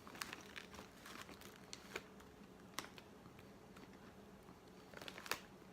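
Faint, scattered crunches of crisp corn snack chips being chewed, in short irregular clicks with a small cluster near the end.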